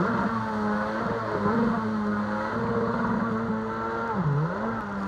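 Jet ski engine running at speed, a steady high drone that dips briefly in pitch and climbs back about four seconds in.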